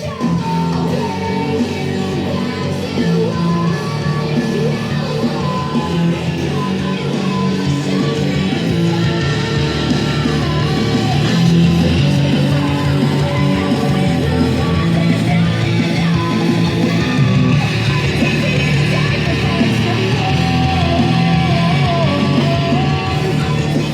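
Nightcore rock track with guitar and singing played back through a Tascam VL-X5 bi-amplified nearfield studio monitor.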